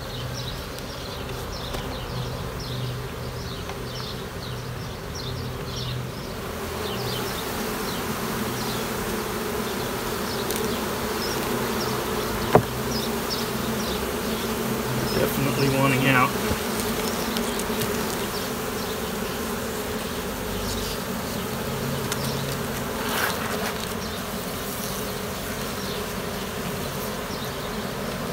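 Many honeybees buzzing in a steady hum around an open mating nuc. A single sharp click sounds about halfway through.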